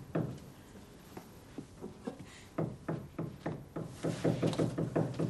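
Hammer blows driving nails into a wall: a few scattered knocks, then from about halfway a fast run of blows, several a second.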